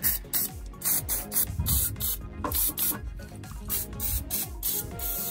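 Aerosol can of rust-penetrating spray hissing in a dozen or so short bursts, soaking rusted exhaust manifold bolts.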